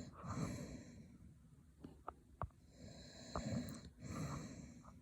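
A man snoring in his sleep, with a rasping breath every second or so and a few short clicks in between.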